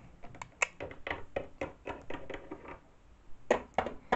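Light plastic taps and clicks of a small Littlest Pet Shop toy figure being tapped along a toy dollhouse and shelf by hand, about four or five a second, with a short pause about three seconds in before a few louder taps.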